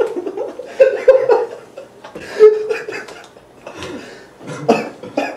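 A group of young men laughing, in quick repeated bursts at first and then more scattered, with a few snatches of talk.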